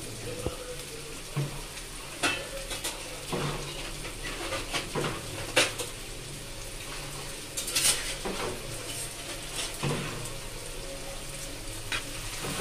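Chopped onions frying in oil in a non-stick kadai, a low sizzle with scattered sharp clinks and scrapes of a steel spatula against the pan every second or few.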